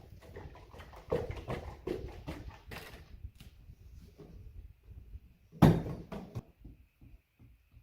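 Irregular knocks and clatter of objects being handled and set down, with one loud bang about five and a half seconds in, then a few faint ticks.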